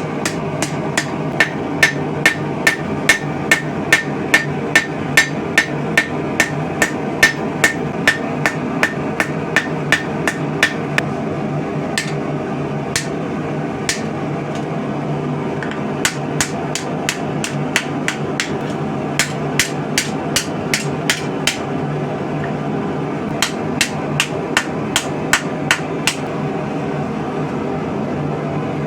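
Hand hammer striking hot steel on an anvil while forging a blade, about two ringing blows a second. The blows stop for a few seconds near the middle, with two lone strikes in the gap, then start again over a steady low hum.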